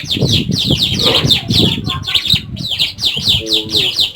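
Bar-winged prinia (ciblek) calling in a rapid, unbroken string of short, high, downward-sliding chirps, several a second.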